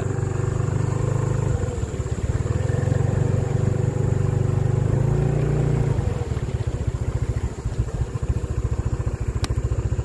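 Motorcycle engine running at low road speed, heard from the rider's seat; about six seconds in the steady note gives way to an even low pulsing. A single sharp click sounds near the end.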